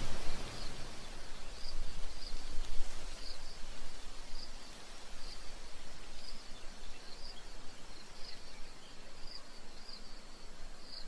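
Steady white-noise hiss with short high chirps repeating about once or twice a second, slowly growing quieter toward the end.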